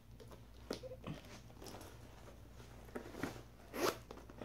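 Handling noises from a red pebbled-leather handbag being checked by hand: a few short rustles and clicks of the leather and its zippers, the loudest near the end.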